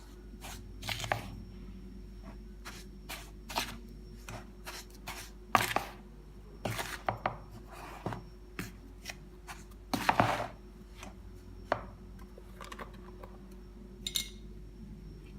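Flour, sugar and baking powder being stirred in a mixing bowl with a utensil: irregular scrapes and knocks against the bowl, the longest scrapes about five and a half, seven and ten seconds in.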